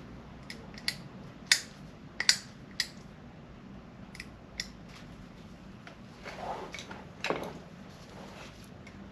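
Scattered sharp clicks and taps of small metal parts and hand tools being handled on a motorcycle fork during seal installation, followed by two short scraping sounds.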